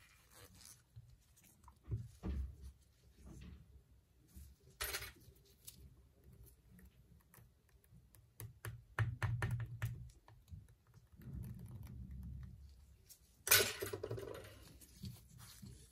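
Light, scattered clicks and short scrapes of small tools and plastic parts being handled on a Samsung Galaxy J7 Max being taken apart, with a run of quick clicks just past halfway and a sharper scrape near the end.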